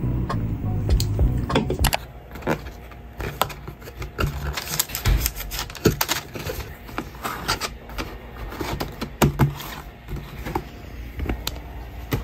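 Cardboard boxes and packaging being handled and set down: scattered clicks, taps and light rustles at an uneven pace.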